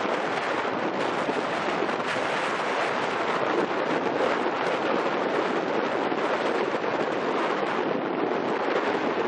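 Steady rushing noise of wind and water by the shore, with no engine tone or other distinct sound standing out.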